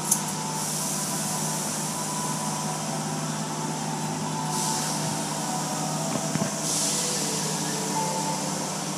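Automatic car wash heard from inside the car: a steady machinery hum with water spray hissing against the windows. The spray hiss swells twice, about halfway through and again a couple of seconds later.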